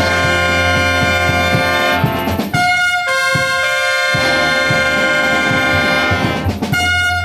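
Concert band playing, with trumpets and trombones to the fore in held chords that change twice.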